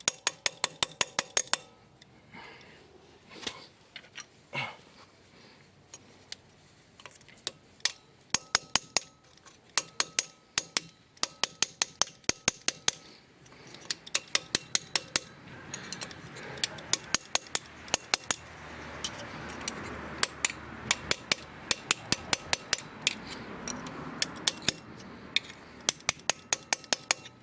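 Rapid runs of sharp metallic clicks or taps, several a second, from hand tools working on a car's rear hub while its hub cap is being fitted. A low rushing sound runs underneath in the second half.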